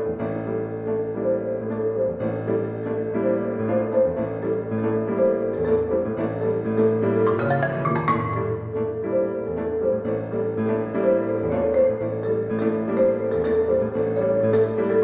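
Marimba and grand piano playing together in a contemporary classical piece: many rapid struck notes over a sustained low pitch. About halfway through, the marimba's mallet strokes become sharper and more prominent.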